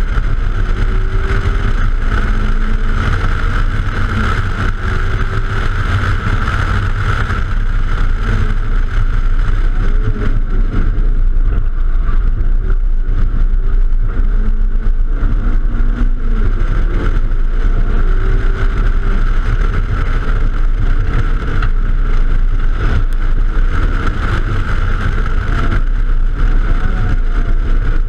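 A hatchback being driven hard on a road course: wind rushing over the microphone makes a steady loud rumble, with the car's engine underneath, its pitch rising and falling through the corners.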